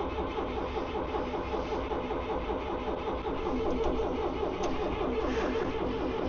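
1972 Allis-Chalmers M65 grader's spark-ignition engine being cranked over by the starter, a steady rhythmic churn that does not catch and run. The engine is hard starting, and a known good ignition coil swapped in has not cured it.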